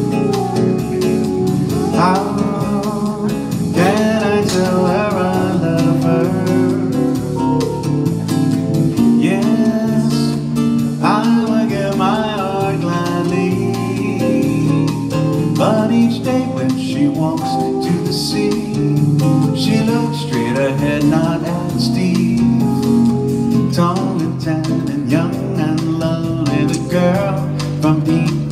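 Live duo music: an acoustic guitar picking a melody over electric keyboard accompaniment, in an instrumental passage without singing.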